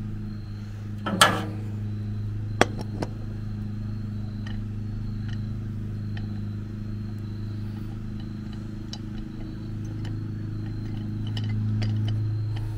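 Aluminium pressure-cooker lid being set on and fastened: a sharp metal knock about a second in, then two lighter clicks, over a steady low hum.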